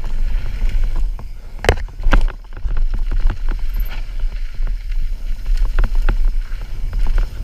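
Mountain bike riding fast down a dirt jump trail: wind rumbling on the camera microphone, with the chain and frame rattling throughout and two heavy knocks about two seconds in.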